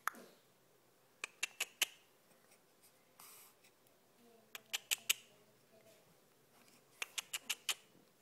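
Three quick runs of sharp clicks, four to six in each, coming a little over a second in, about halfway through and near the end, made to catch a baby's attention.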